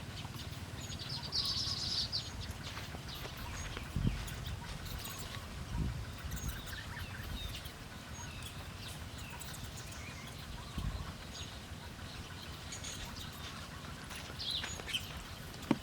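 Wild birds calling in woodland: scattered short chirps and calls, the loudest a buzzy one about a second and a half in, over a steady low rumble. A few dull thumps come about four, six and eleven seconds in.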